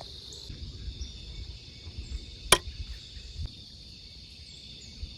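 Steady chorus of crickets chirping in the woods, with a low rumble in the first half and a single sharp click about halfway through, the loudest sound here.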